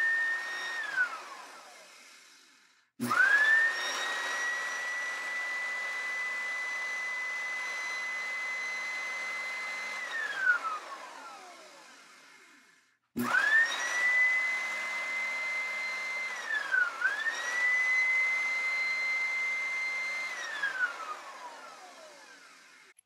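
Electric chainsaw motor running free with no bar or chain fitted, on a test run after restoration: it winds down from one run, then twice more starts with a click, spins up quickly to a steady high whine, and coasts down slowly when released. On the last run it dips in pitch midway and picks back up before winding down.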